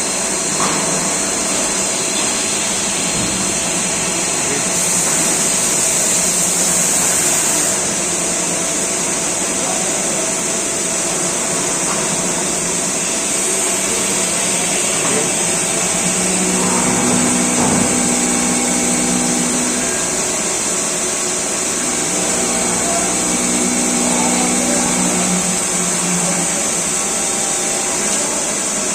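Steady hum and high hiss of running workshop machinery. A low tone comes in twice, for a few seconds each time, about halfway through and again later.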